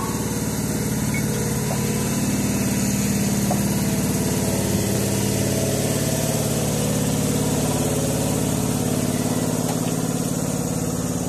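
Stationary electric train's underfloor equipment running at a platform: a steady low hum with a fast, even pulse through it and a couple of faint ticks.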